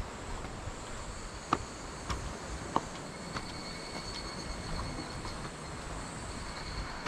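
Steady high-pitched insect buzzing, over a low rumble, with a few short sharp clicks in the first half.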